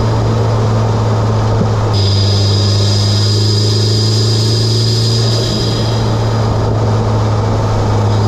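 Mitsubishi Lancer Evolution X's turbocharged 2.0-litre four-cylinder, fitted with an Injen intake and HKS single-exit exhaust, running at fairly steady revs while driving. A high steady whine joins about two seconds in.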